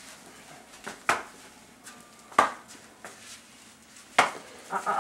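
Three sharp blows, about a second and a half apart, of a young man with severe autism hitting himself in the head: self-injurious behaviour. A short vocal sound comes at the very end.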